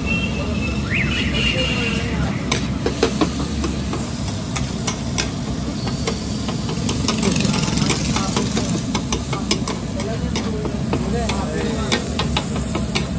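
Oil and onions sizzling on a large flat street-stall griddle, with a metal spatula clinking and scraping against it in many sharp, irregular taps, over a steady low hum.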